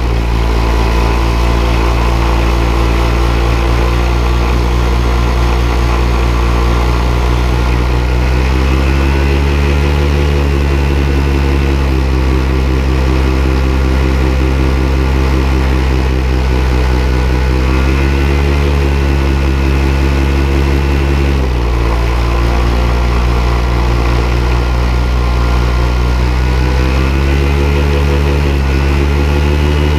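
Paramotor engine and propeller running steadily in flight, the engine note rising and falling several times as the throttle is worked, with a sharp dip about two-thirds of the way through.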